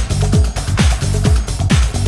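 Progressive house music with a steady four-on-the-floor kick drum, a little over two beats a second.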